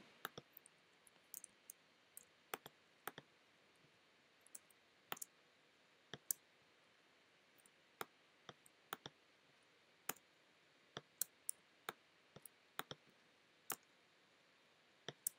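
Computer mouse clicking: sharp, quiet single clicks at irregular intervals, some in quick pairs, over near-silent room tone.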